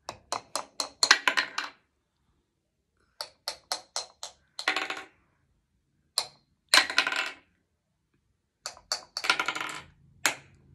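Small plastic hammers tapping the plastic ice blocks of a penguin ice-breaking board game, in quick runs of sharp clicks. A few longer rattles come between the runs of taps.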